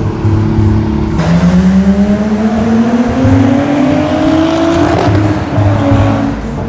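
A car engine accelerating in one long rising pull that starts abruptly about a second in and falls away near five seconds, over background music.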